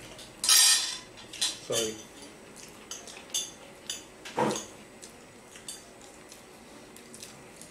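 Metal spoons and forks clinking and scraping on ceramic plates as people eat, in scattered short clicks, with a louder clatter about half a second in.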